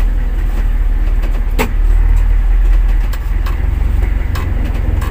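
Inboard engine of a motorized outrigger fishing boat (bangka) running steadily, with a low rumble, and a sharp knock about one and a half seconds in.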